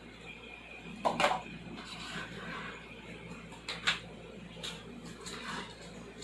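Plastic Hot Wheels track pieces being handled and fitted together: a few sharp clicks and knocks, the loudest about a second in and another just before four seconds in.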